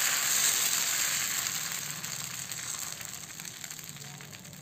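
Thin pitha batter sizzling on a hot tawa as it is spread with a ladle. The hiss fades steadily over a few seconds as the batter sets.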